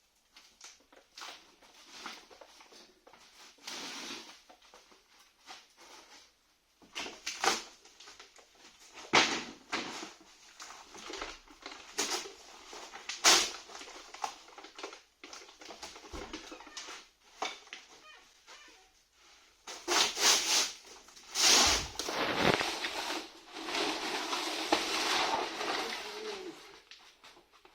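Irregular knocks, clunks and scraping from heavy marble fireplace pieces being handled and shifted, with a few sharper knocks and a stretch of continuous scraping near the end.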